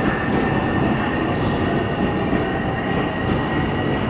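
Electric commuter train running on the track alongside the platform: a steady rumble of wheels on rails with a thin, steady high whine over it.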